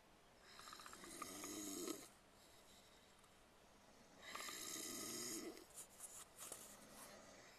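Faint snoring from a sleeping person: two snores about four seconds apart, each lasting about a second and a half.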